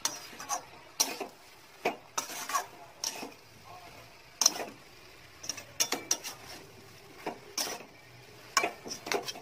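Metal spatula scraping and knocking against a metal kadai while a thick, fairly dry banana-blossom mixture is stirred and turned over, in irregular scrapes and clacks about one or two a second.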